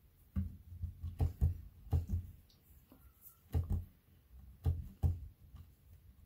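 Polymer clay cane being rolled by hand on a work mat. Its palms and the clay log bump the mat in an irregular series of about ten dull knocks as the cane is reduced and lengthened.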